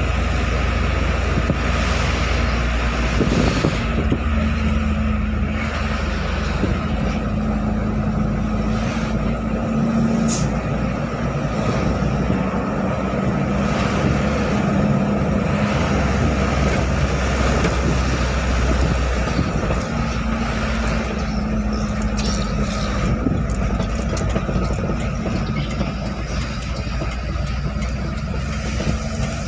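Truck engine and road noise heard from inside the cab while driving: a steady low rumble with a droning hum that comes and goes several times as the engine speed changes.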